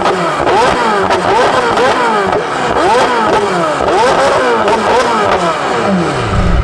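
McLaren 720S twin-turbo V8 with free-flow downpipes and a non-valved titanium double X-pipe exhaust, revved in quick repeated throttle blips, each rising and falling in pitch, with a high-pitched exhaust note. Near the end it drops back to idle.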